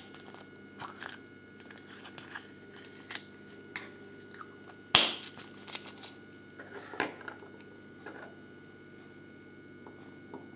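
Yellow plastic Kinder Surprise capsule and its small parts handled: one sharp plastic snap about halfway, amid scattered light clicks and the crinkle of a folded paper leaflet.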